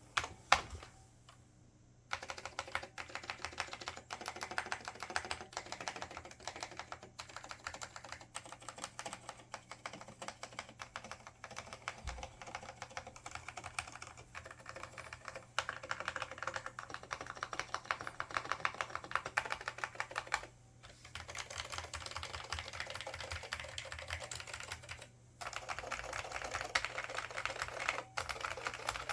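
Fast continuous typing on an IBM 5556-001 Multistation keyboard with Alps SKCL Green switches and ABS doubleshot keycaps, a dense run of sharp clacking keystrokes broken by three short pauses.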